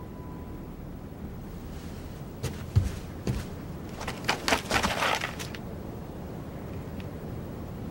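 A cluster of sharp knocks and scuffs between about two and a half and five and a half seconds in, over a low steady background rumble.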